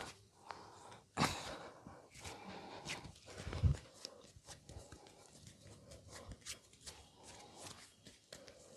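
Hands massaging a person's head and body: irregular rubbing with sharp taps and slaps. The loudest is a dull thump about three and a half seconds in.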